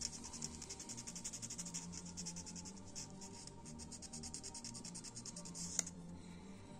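Rapid scratching strokes of sanding or scraping a small plastic model part to clean it up, over soft background music, with one sharp click near the end.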